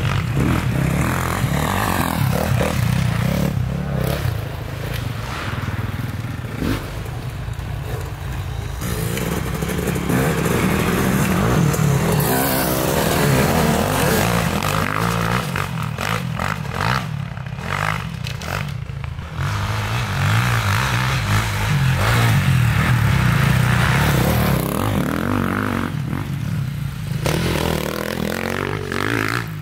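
Several dirt bikes riding past on a rutted track, engines revving up and falling away again as each one goes by, with louder and quieter stretches as they come and go.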